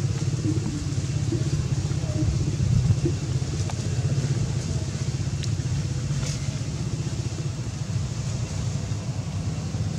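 A steady low rumble, with a few faint clicks over it.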